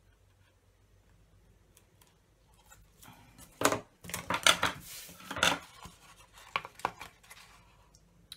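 Metal scissors and small craft tools being pushed and set down on a plastic work mat, heard as a flurry of scraping and clattering knocks about three and a half seconds in, then a few light clicks.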